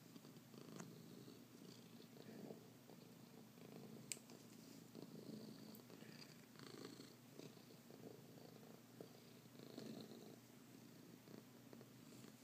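Domestic cat purring faintly and steadily, swelling and fading in waves, as she rubs her face against the bristles of a hairbrush in contentment. One brief click about four seconds in.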